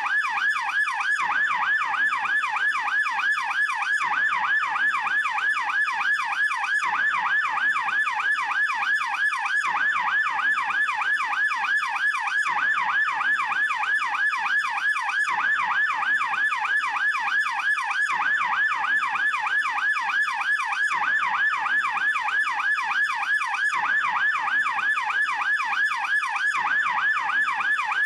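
German police siren in yelp mode, its pitch sweeping quickly up and down several times a second in an even, unbroken cycle.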